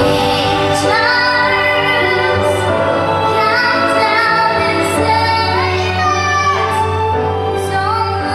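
A solo female voice sings a wavering, gliding melody over an instrumental backing track with a steady bass.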